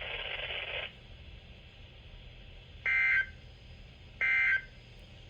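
Weather-radio hiss that cuts off just under a second in, followed by two short bursts of EAS SAME digital data tones about 1.3 seconds apart. These are the end-of-message code that closes the weekly test.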